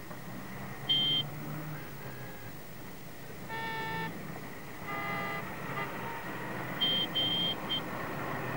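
Street background with traffic hum, broken by short high electronic beeps: one about a second in and three in quick succession near the end. Two brief horn-like blasts, each at a different pitch, sound in the middle.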